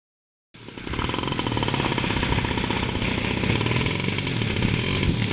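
30cc two-stroke petrol engine of an RC model plane running steadily through a beer-can muffler, starting about half a second in.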